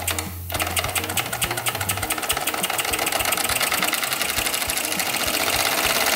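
Mamod model steam engine running in reverse: its oscillating cylinder exhausts steam in rapid, even chuffs. The chuffing starts about half a second in and grows slightly louder toward the end.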